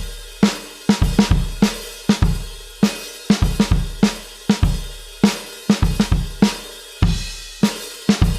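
Drum kit playing a looped alternative-rock beat of kick drum, snare and cymbals, with no other instruments.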